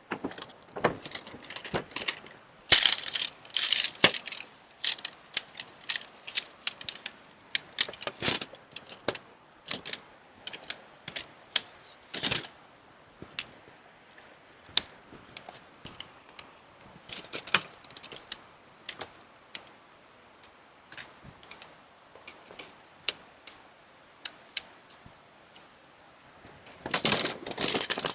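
Irregular clicking and clattering of small hard objects being handled. It comes in dense bunches several times, with scattered single clicks in between.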